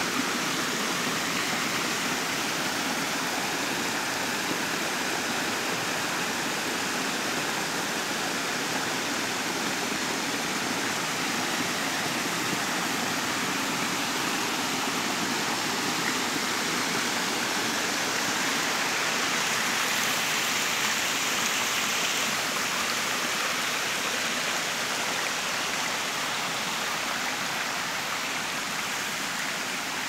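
Shallow forest stream rushing and splashing over rock slabs in small cascades: a steady, even rush of water that grows a little quieter near the end.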